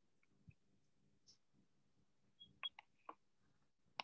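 Near silence, with a few faint, sharp clicks: a cluster of three or four about two and a half to three seconds in, and one more at the very end.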